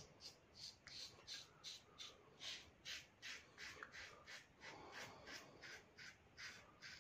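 Double-edge safety razor scraping through lathered stubble in short, quick strokes, about three a second, faint.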